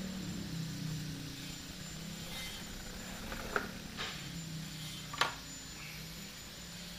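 Steady low electrical hum of electronics repair bench equipment, with a few small sharp clicks of tools on the bench about halfway through, the loudest a little past five seconds in.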